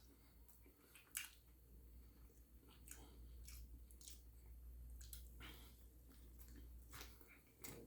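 Faint close-up chewing of a mouthful of catfish fillet, with soft wet mouth clicks and smacks scattered through.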